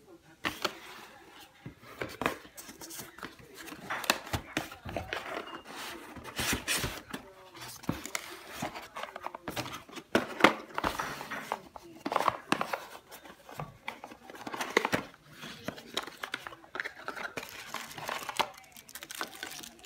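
Cardboard box flaps and plastic-wrapped parts being handled while unpacking, with irregular rustling, crinkling and knocks of cardboard.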